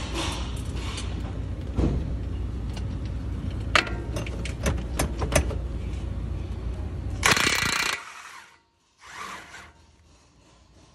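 Impact wrench hammering on a nut in a loud burst of under a second about seven seconds in, then a shorter burst about two seconds later. Before it, a steady low rumble with scattered metallic clicks and knocks.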